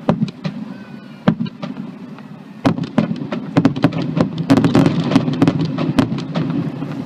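Aerial fireworks going off: sharp bangs and crackles over a low rumble. They come a few at a time at first, then turn into a rapid volley from about three seconds in.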